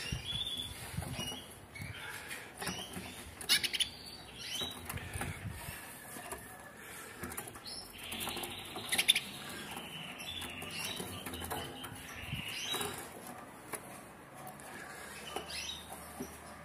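Caged red intensive agate canaries giving short, scattered chirps and calls, with wing flapping and a few sharp knocks as they hop about the cage, the loudest knocks about 3.5 and 9 seconds in.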